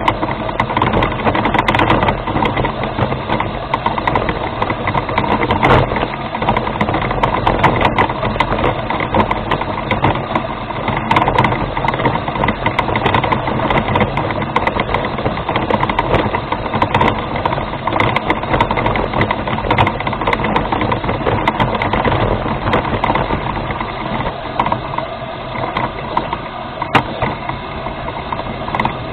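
Remote-controlled rover's motors and gearing running steadily as it drives, a dense whirring noise with frequent small clicks and rattles.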